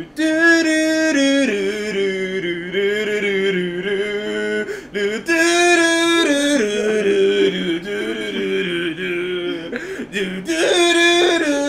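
Kazoo playing a melody in held, stepping notes with a buzzy tone, breaking off briefly about five seconds in and again near ten seconds.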